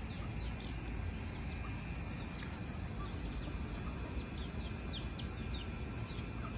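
Free-range chickens peeping as they forage: short, high, falling peeps, several a second, growing thicker in the second half, over a steady low rumble.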